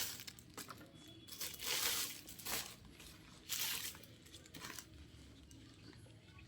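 Packaging crinkling and rustling in several short bursts as a pair of headphones is handled and taken out of its wrapping, quieter near the end.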